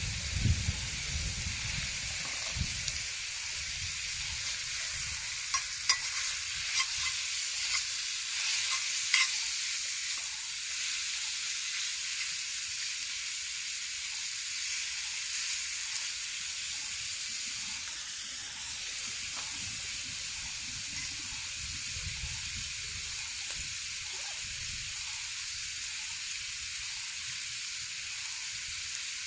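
Food frying in a cast iron pan: a steady sizzle, with a few sharp pops and clicks in the first ten seconds or so.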